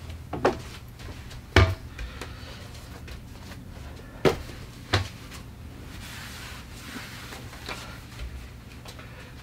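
Knocks and clunks of boxes and kitchen items being handled and set down on a countertop, with an overhead cabinet door being worked. Four sharp knocks come in the first half, fainter ticks come later, and a steady low hum runs underneath.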